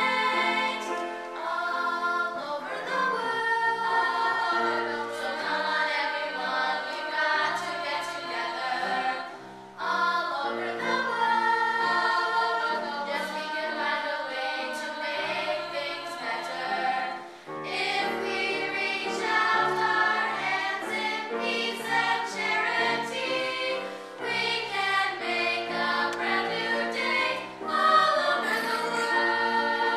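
Girls' chorus singing a song together, with two short breaks between phrases, about a third and about halfway through.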